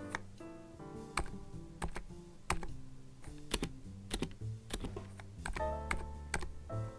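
Keys of a NIZ Plum87 electro-capacitive keyboard being pressed one at a time, separate keystrokes coming irregularly about one or two a second. Background music with piano-like notes plays under them.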